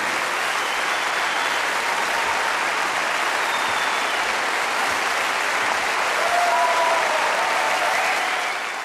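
Large theatre audience applauding steadily, with a few voices calling out over the clapping near the end.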